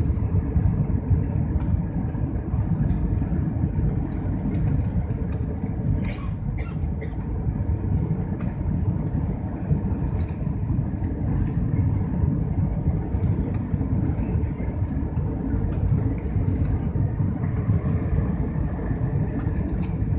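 Steady low engine and airflow noise heard inside the cabin of an Airbus A320-family jet airliner climbing out after takeoff, with a faint steady hum underneath.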